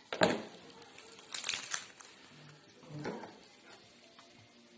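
Plastic bag crinkling and rustling in a few short bursts as a whole raw chicken is handled on a wooden cutting board.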